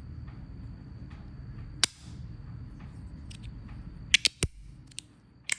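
Stainless steel fidget slider being worked by hand, giving sharp metallic clicks and snaps: one about two seconds in, then a quick run of about five near the end as its part pops off and is snapped back.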